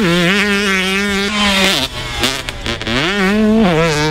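The 125cc two-stroke single-cylinder engine of a 2005 Honda CR125 motocross bike running at high revs. Its pitch drops with a gear shift about two seconds in, climbs back up past three seconds, and dips again near the end.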